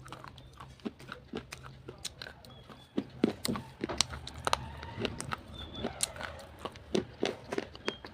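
Slate pencils being bitten and chewed close to the microphone: irregular sharp crunches and snaps, louder and more frequent from about three seconds in.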